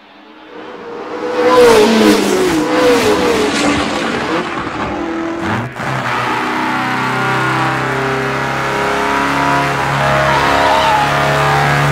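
Sound effect of Il Tempo Gigante's racing-car engine at full speed. Pitch sweeps rise and fall as it swells in, then after a break about six seconds in the engine runs on at a steady high pitch.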